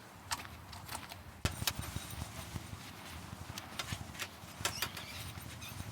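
Scattered clicks, taps and knocks of a shower tent's metal arms and clips being handled and fitted, unevenly spaced, over a low rumble.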